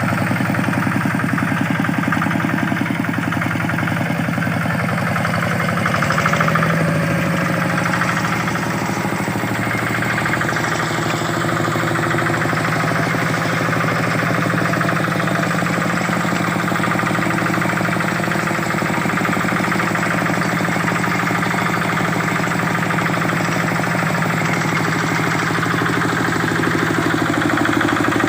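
Single-cylinder Kubota RD65 diesel engine of a walk-behind hand tractor running steadily with a rapid, even firing beat, swelling briefly about six seconds in.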